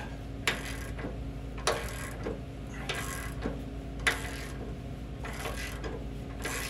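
Hand ratchet clicking in short bursts at a steady pace, stroke after stroke, as it turns the nut of a bolt-type bushing press tool that is pressing a seized lower control arm bushing out of the frame.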